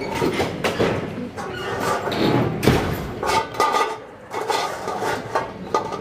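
Lion cub licking out a stainless steel bowl, with irregular wet lapping clicks and the metal bowl knocking and scraping on brick paving.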